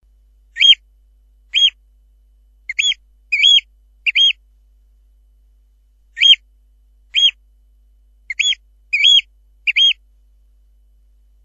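Eurasian oystercatcher giving short, sharp, high piping calls, each rising and then falling in pitch. There are ten calls in two groups of five.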